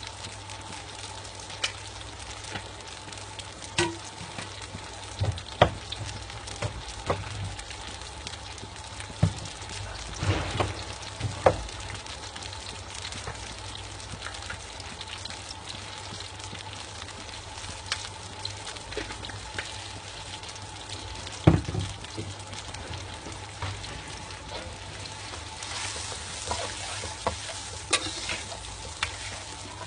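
Tamarind and belacan sauce simmering and bubbling in a pan, a steady hiss, with a spoon or ladle clinking against the pan now and then as it is stirred.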